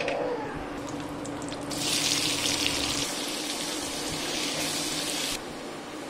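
Cumin seeds crackling in hot oil with a few sharp pops. About a second and a half in, a loud sizzle breaks out as sliced onions fry in the oil. It cuts off abruptly a few seconds later, leaving a softer steady frying sizzle.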